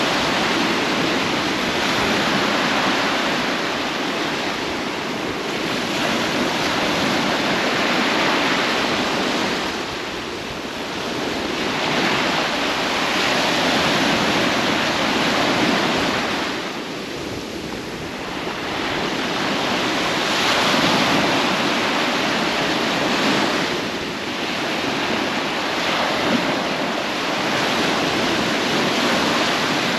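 Sea surf washing onto a beach: a steady rushing that swells and eases every several seconds as waves come in.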